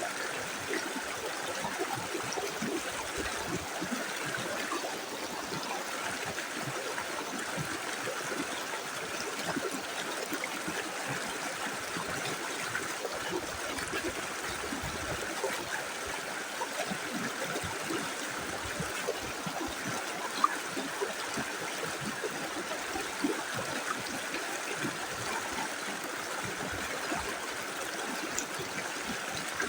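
Small river flowing steadily over stones, running water with a constant gurgling and trickling.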